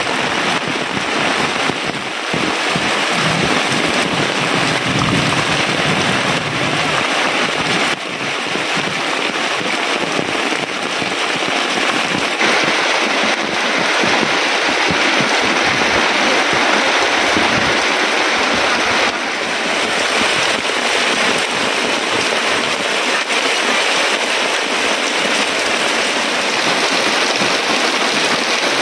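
Heavy rain falling as a loud, steady downpour hiss.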